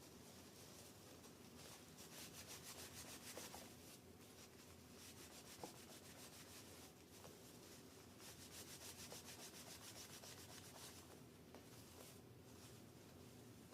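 Tissue rubbing back and forth over a CPU, wiping off old thermal paste: faint, quick rubbing strokes that come in two longer spells, with one small tap a little past the middle.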